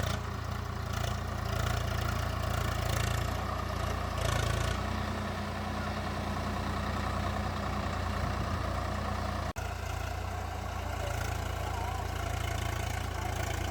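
Tractor diesel engine running steadily, a low hum whose note shifts slightly about five seconds in.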